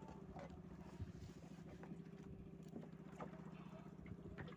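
Small fishing boat's engine running steadily at idle, faint, with a few light clicks and knocks over it.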